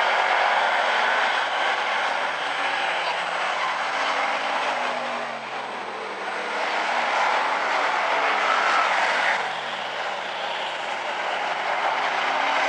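Hobby stock race cars running laps on an oval track, a steady blended engine drone from the field that swells and fades a little as cars pass.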